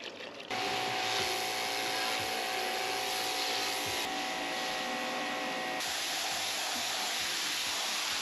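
Pressure washer spraying water onto a car's roof and windows: a steady hiss with a steady whine from the machine, starting about half a second in.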